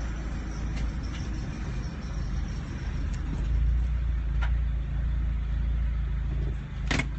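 Car engine and road noise heard from inside the cabin, a steady low rumble, with a sharp click near the end.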